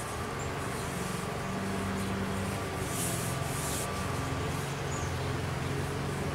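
Steady low engine hum in the background, growing slightly louder, with a couple of brief rustles about three seconds in as hands slide over the wooden stick.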